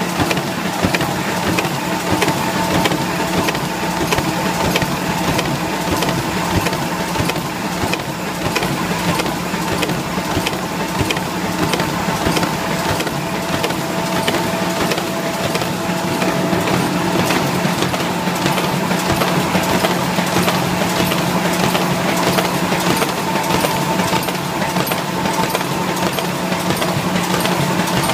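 Folder-gluer box-gluing machine running steadily: a constant mechanical hum with fast, dense ticking throughout.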